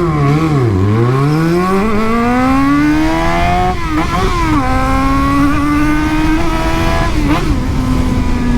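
Yamaha XJ6 inline-four motorcycle engine pulling hard under acceleration, with a loud exhaust note. The pitch climbs through one gear, drops at an upshift about four seconds in, and climbs again. It drops at another shift about seven seconds in and then holds steady.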